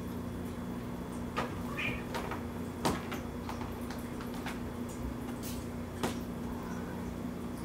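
Scattered light knocks and scrabbling as two cats wrestle on wall-mounted wooden cat shelves and fabric hammocks, their paws and claws bumping the boards. Several irregular knocks, the sharpest about three seconds in and again about six seconds in, sound over a steady low hum.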